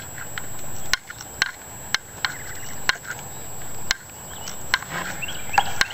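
Footsteps on dry leaf litter and twigs, a sharp crackle about once a second. Small birds chirp in the background in the second half.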